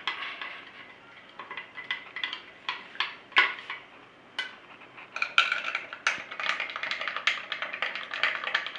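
Stirring washing powder into water in glasses, the stirrer clinking against the glass: scattered clinks at first, then quicker, steady clinking from about halfway through as the powder is mixed to dissolve.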